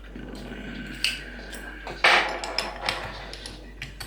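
Metal lock parts and tools being handled, clicking and clinking against each other, with a loud metallic knock about two seconds in.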